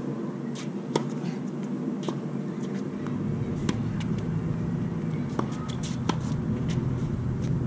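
Tennis rally: a ball struck by rackets several times, sharp hits a second or two apart, over a steady low rumble.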